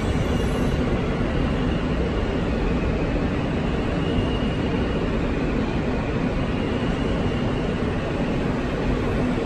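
R160 subway car running through a tunnel, heard from inside the car: a steady rumble of wheels on the rails and car noise, with a faint high whine at times.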